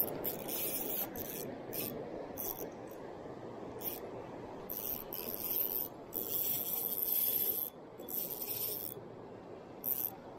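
Shimano Stradic FL 1000 spinning reel being cranked in spurts on a retrieve, a rasping whir from the rotor and line coming back, over the steady rush of the river.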